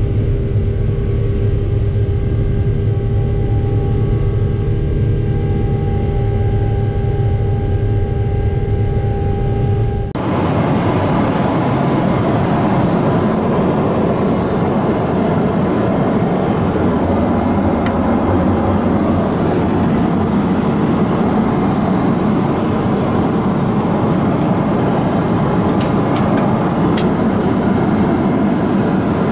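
Boeing 777-300ER's GE90-115B engine during the climb, heard through the cabin window: a steady drone with several held tones. About ten seconds in it changes abruptly to steady airliner cabin noise, an even rush of air and engine sound, with a few light clicks near the end.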